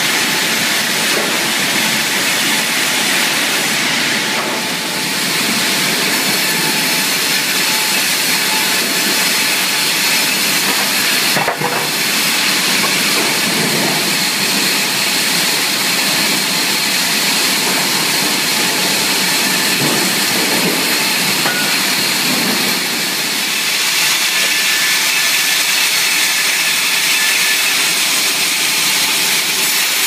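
Sawmill machinery running: the steady, loud hiss and whine of saws and roller conveyors, with a brief dip about a third of the way through and a slight rise near the end.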